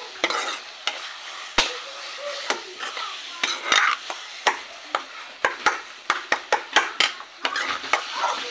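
A steel spoon stirring and scraping spiced masala frying in oil in a kadhai: a steady sizzle with irregular clinks of the spoon against the pan, coming quicker in the second half.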